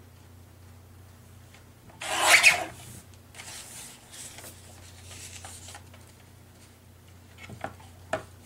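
Sheets of paper sliding and rubbing against each other and across a Fiskars paper trimmer as they are lined up for a cut. One loud half-second swipe comes about two seconds in, then softer scrapes, and two light taps near the end.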